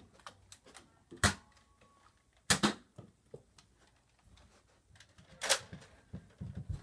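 Toy Nerf blasters being primed and fired: four sharp plastic clacks, two of them close together near the middle, with lighter clicks of handling between.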